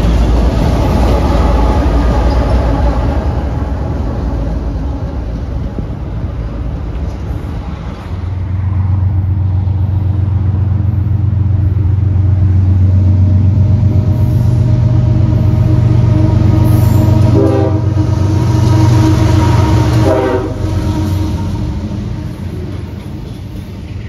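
Freight train passing: the rumble of the last double-stack cars fades, then the steady low drone of diesel locomotives builds and holds, with two short horn blasts near the end of the drone. The drone then drops off as stack cars roll by.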